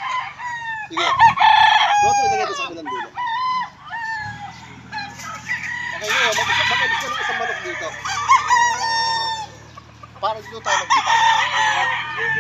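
Several white gamecock roosters crowing, their calls overlapping in loud bouts about a second in, around the middle, and near the end. A steady low hum sets in about four seconds in.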